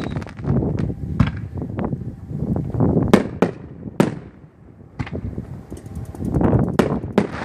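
Fireworks display going off: an irregular string of sharp bangs and cracks over low rumbling, with the loudest cracks about three and four seconds in, a short lull just after, and more bursts near the end.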